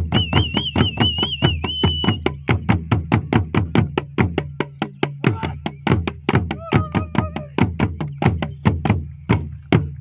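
Traditional Ugandan drums played together in a fast, steady rhythm of about five strokes a second, with deep drum tones underneath. A high wavering whistle sounds over the first two seconds, and a short wavering vocal call comes about six and a half seconds in.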